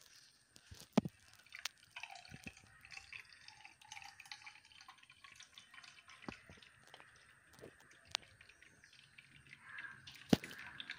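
Blended rose apple juice pouring from a blender jar into a tall glass, a faint dribble of thick liquid, with a few light clicks.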